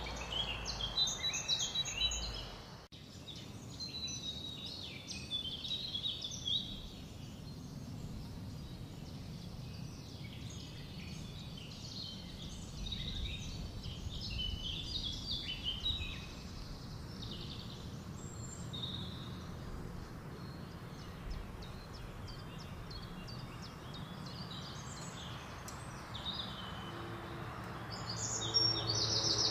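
Songbirds singing and chirping in a quick string of short high notes over a low, steady open-air hum. The sound cuts out briefly about three seconds in, and a low hum grows louder near the end.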